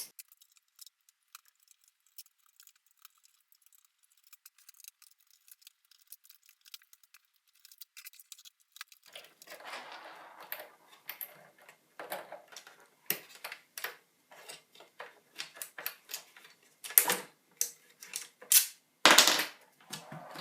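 Small metallic clicks and clatter of hand tools and computer parts being handled while an iMac G4 is taken apart. They are sparse and faint for the first half, then come thick and fast, with two loud knocks near the end.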